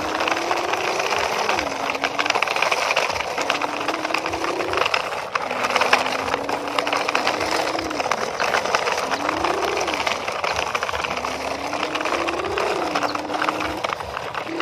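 Plastic toy dump truck loaded with soil being pushed over gravelly dirt: its plastic wheels roll and grit crunches under them in a steady crackle of many small clicks. Under it runs a faint low hum that slowly slides up and down in pitch.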